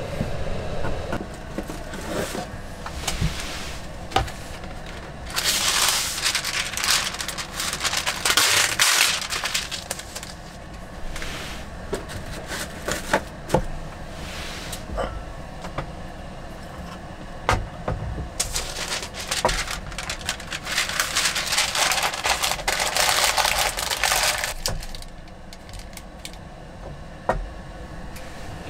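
Cooking gear being handled and set down on a wooden table, with scattered clicks and knocks. Two long stretches of steady hissing noise run through it, one about five seconds in and another from about eighteen to twenty-four seconds.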